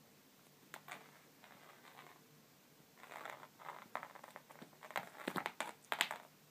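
A cat pawing at and grabbing a cat-teaser toy: light rustles, taps and scuffs of paws and toy on the floor and carpet. A couple of ticks about a second in, then the rustling and tapping grow busier and loudest near the end.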